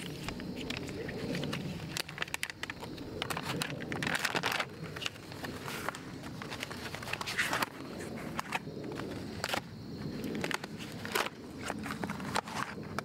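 Packaging being handled during a bike unboxing: irregular rustling and crackling with scattered clicks and knocks.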